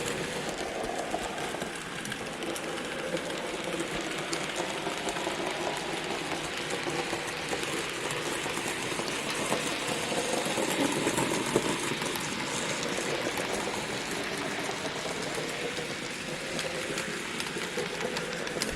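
N gauge model train running round a layout: the steady whirr of a small electric locomotive motor, with light ticking of wheels over the track.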